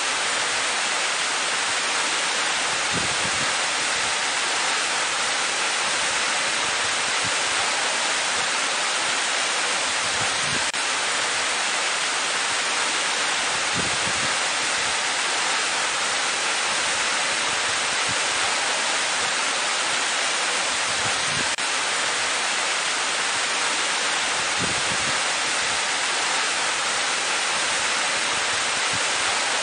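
Waterfall plunging into a pool, a steady, hissing rush of falling water with little low rumble.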